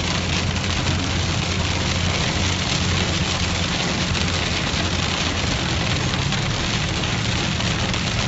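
Heavy rain hitting a car's roof and windshield while driving, over a steady low rumble of engine and tyres, heard from inside the cabin.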